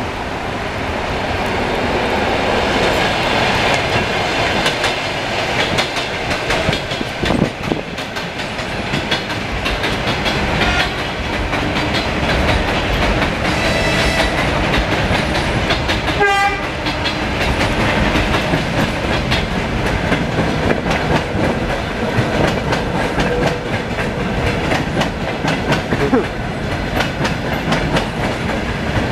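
Electric commuter trains passing: a steady rumble of wheels on rails with clickety-clack over the rail joints, and a brief horn call about halfway through.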